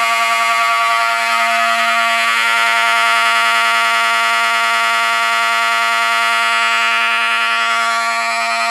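Wheelock Model 34 electromechanical fire alarm horn sounding continuously on a fire alarm panel's continuous coding. It is a loud, steady, unbroken horn tone rich in overtones.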